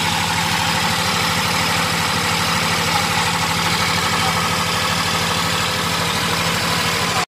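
Diesel generator set running steadily at constant speed, an even engine sound with no change in pitch or load.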